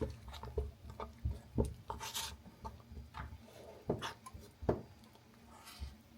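A spoon scraping and knocking in a pot as heavy whipping cream is worked into instant mashed potato flakes, with irregular knocks and two short hissing scrapes, one about two seconds in and one near the end.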